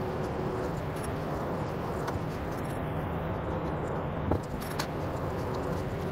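Steady workshop hum with a few light clicks and taps, the sharpest about four seconds in, as burlap is handled and smoothed over a powder-coated steel wire seat-spring frame.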